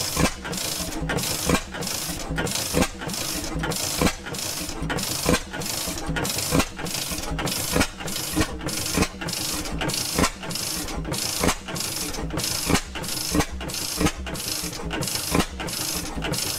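Circa 1926 Joseph Reid Type A two-stroke engine running slowly on hot-tube ignition, with a loud beat about every second and a quarter and lighter knocks between them.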